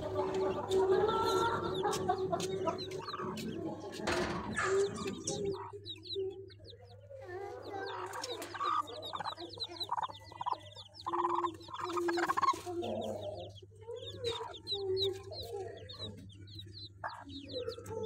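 Mother hen clucking repeatedly to her newly hatched chicks, which peep in many short, high chirps, most densely in the second half.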